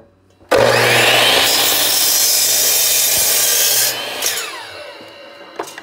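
Miter saw started with a sudden loud start and rising whine about half a second in, its 40-tooth blade cutting through a pine board. At about four seconds the trigger is released and the blade winds down with a falling whine.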